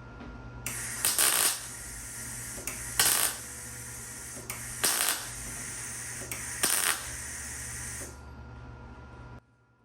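Arc welding an 18-gauge steel patch into a tailgate hole: four short bursts of welding, about two seconds apart, over a steady hum. The hum cuts off suddenly near the end.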